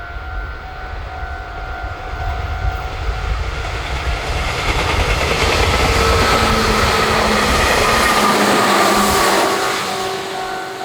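A train passing a Japanese level crossing, its noise building to loudest about two-thirds of the way through and then easing, while the crossing's warning bell keeps up its steady two-tone "kan-kan" ringing underneath.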